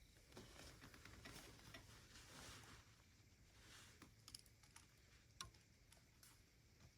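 Near silence with faint rustling for the first few seconds, then a few small sharp clicks and ticks, one a little louder about five seconds in.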